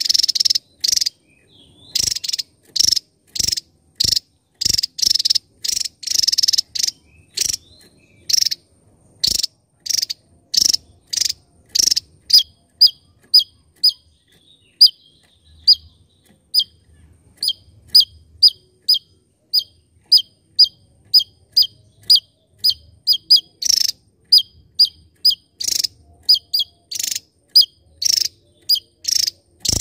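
Javan tesia singing a rapid series of short, loud notes, about two a second: harsh buzzy notes at first, then clear, sharp whistled notes with a quick downward flick from about twelve seconds in, then buzzy notes again near the end.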